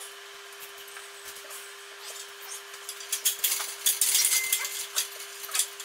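Clatter of hard parts being handled: a run of clicks and rattles, busier and louder in the second half, over a steady faint hum.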